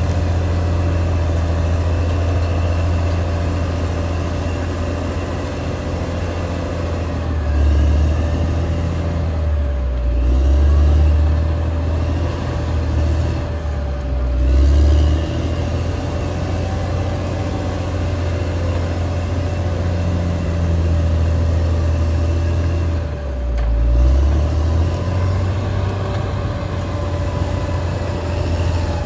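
Caterpillar D6R XL bulldozer's diesel engine working, with a steady whine above the low rumble; the engine note swells and dips several times, around a third, half and four-fifths of the way through, as the load changes.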